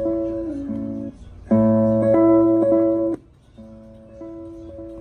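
Speaker alarm clock playing a short built-in alarm melody in repeated snippets at stepped volumes. One snippet stops about a second in, a louder one follows, then a much quieter one: the alarm volume being cycled through its levels.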